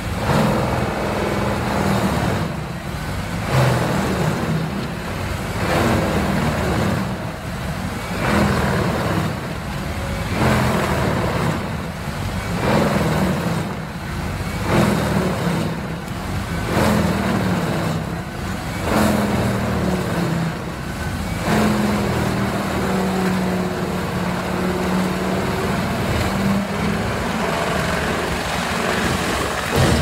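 Large tracked whole-tree chipper's diesel engine running under load while it chips whole trees, its sound surging about every two seconds over a constant drone.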